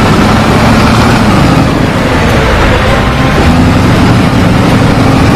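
Truck engine running steadily and loudly, a low drone under a heavy hiss.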